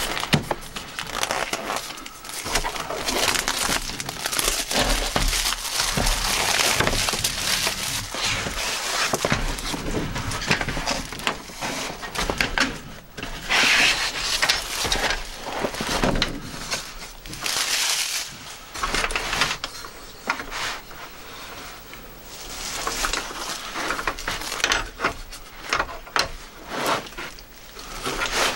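Clear plastic wrapping crinkling and rustling in irregular stretches as it is pulled off a plastic laptop cooling pad, with clicks and knocks from the pad's plastic frame being handled.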